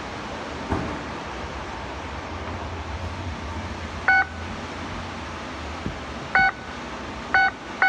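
Electronic oven control panel beeping as its buttons are pressed: four short multi-tone beeps, the first about four seconds in and the last three closer together near the end, over a low steady hum.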